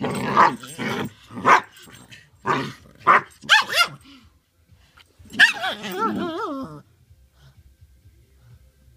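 Dog barking and growling: a string of short, loud barks over the first four seconds, then a longer wavering, warbling cry about five seconds in, before it goes quiet.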